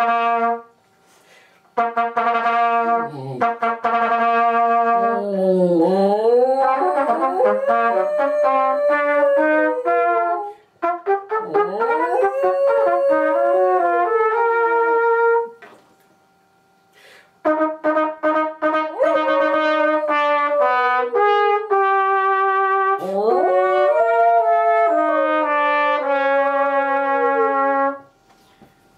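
Trumpet playing long held notes, with a small dog howling along in wavering glides that slide up and down under and around the notes. The playing stops for a couple of seconds midway, then both carry on.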